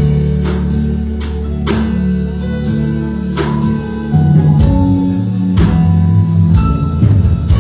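Church band music playing: sustained low chords with a steady drum beat, a hit a little under every second.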